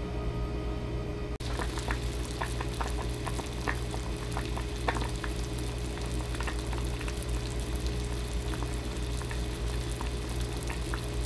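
Soup boiling in a saucepan on a gas burner: irregular bubbling pops over a steady hiss and a low hum. The popping starts about a second and a half in.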